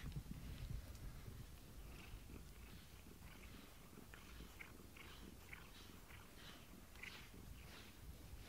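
A cat purring faintly while being stroked, the sound coming in a run of soft short pulses.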